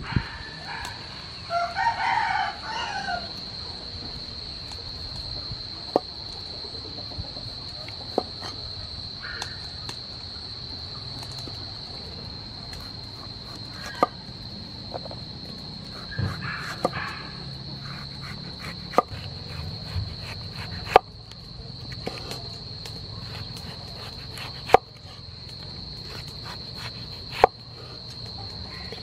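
Cleaver chopping through green tomatoes onto a wooden cutting board: single sharp knocks a few seconds apart. A rooster crows about two seconds in and more faintly midway, over a steady high-pitched insect buzz.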